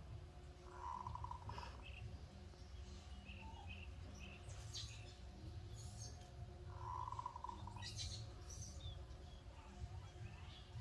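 Faint background birdsong: scattered high chirps and two short buzzy calls, over a low steady hum.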